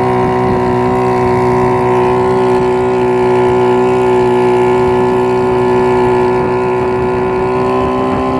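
50 hp Evinrue outboard motor running at a steady throttle, pushing the boat along at an even pitch.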